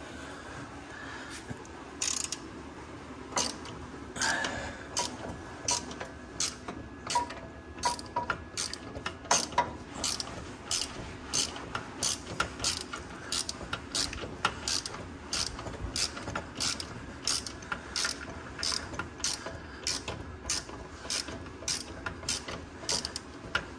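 Hand ratchet wrench clicking as bolts are run in by hand to mount a compressor on an engine. The clicks are sparse at first, then settle about nine seconds in into a steady back-and-forth of about two clicks a second.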